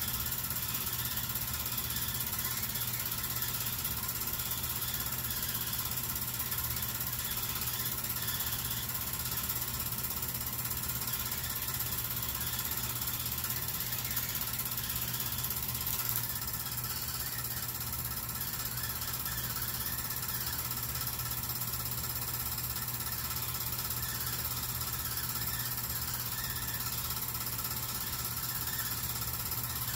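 8mm film projector running: a steady, rapid mechanical clatter from the film transport over a constant hum.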